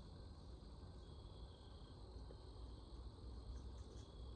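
Quiet woodland ambience: faint insect trilling that comes and goes over a low steady rumble, with a few faint ticks near the end.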